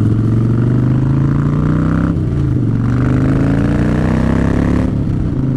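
Harley-Davidson V-twin motorcycle engine accelerating under way: its pitch rises, drops at an upshift about two seconds in, rises again, and drops at another shift near the end.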